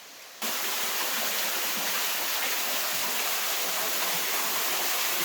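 Steady rushing of running water, starting abruptly about half a second in.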